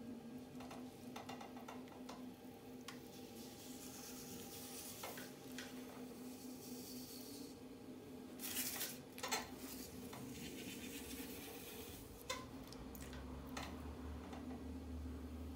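Electric potter's wheel humming steadily while wet clay squelches and rubs under the hands as it is coned up and pressed back down to centre it. There is a louder burst of wet rubbing about eight seconds in.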